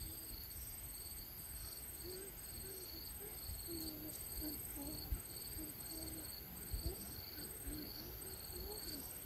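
Insects chirping in short repeated pulse trains, about two a second, with faint low wavering calls and a few soft knocks beneath.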